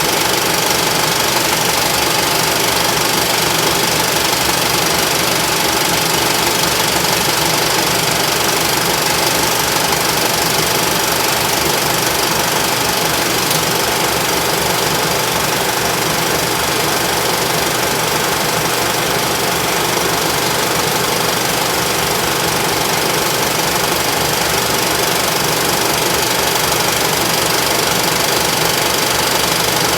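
Vintage film projector running with a fast, even mechanical clatter over a steady whir.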